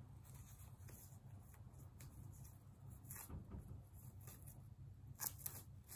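Faint rustling and light ticks of ribbon and a fabric sock being handled as ribbons are tied on, over a low steady room hum, with a couple of sharper ticks about halfway and near the end.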